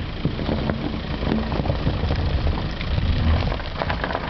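A SEAT car's engine running under load on a snowy slope, its tyres skidding for grip in the snow. The low rumble swells about three seconds in.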